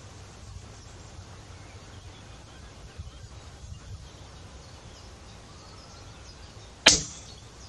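A single shot from a PCP air rifle about seven seconds in: one sharp, short crack with a brief decay, after several seconds of faint steady outdoor background noise.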